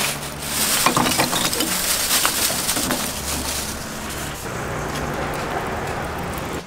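Lumps of charcoal clattering and crackling in a metal grill box: a dense rustling hiss full of sharp clicks and knocks, thinning out toward the end.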